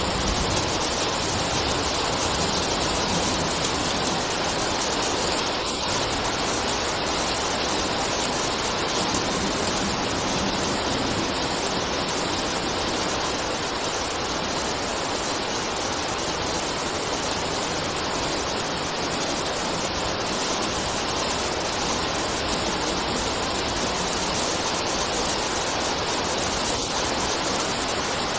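Steady rain: an even, unbroken hiss of falling water.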